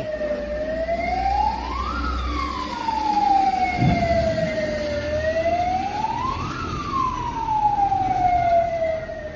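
An emergency vehicle siren wailing in slow cycles, each rising quickly and then falling away more slowly, twice. A second, fainter siren wails out of step with it, and a low thud comes about four seconds in.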